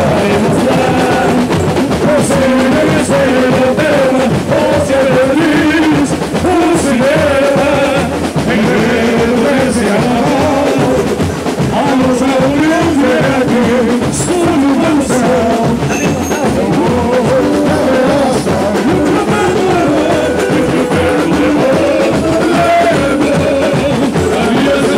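A samba song sung by men's voices through microphones, accompanied by a strummed cavaquinho.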